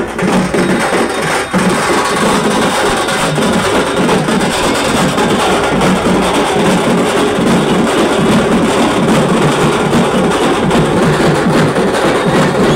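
Loud, steady percussion-led music, with drums and clacking percussion beating continuously.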